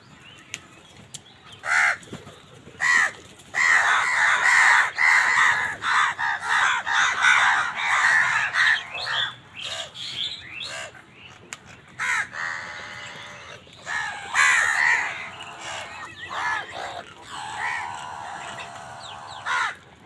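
A flock of house crows cawing. After a couple of single calls, many birds caw at once in a dense, overlapping chorus from about four seconds in, then come quieter spells broken by further bursts of calls.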